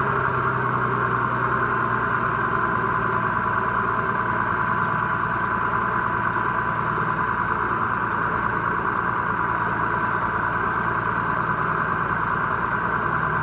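Farm tractor engine running steadily under way, a constant drone with a strong steady high hum on top.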